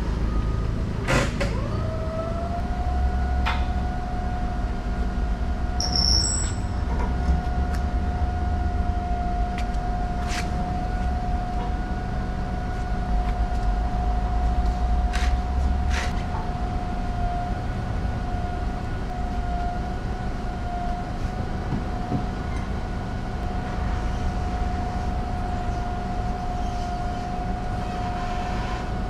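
A machine starts about a second in, its whine rising and then holding one steady pitch over a low rumble, with a few sharp clicks or knocks.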